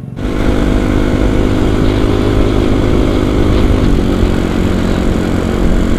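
Kawasaki KLX 250's single-cylinder four-stroke engine running under way, jumping sharply louder just after the start and then holding a steady note, with a brief dip and recovery in pitch about four seconds in.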